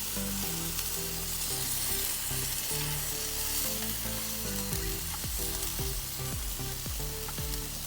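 T-bone steak sizzling steadily on a barbecue grill as it cooks. Faint background music plays underneath.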